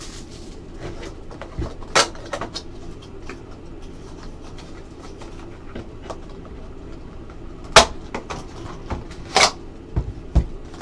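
Hands opening and handling a Spectra football card box and its pack: a few sharp taps and knocks of cardboard and plastic, one about two seconds in and the loudest ones near the end, over a faint steady hum.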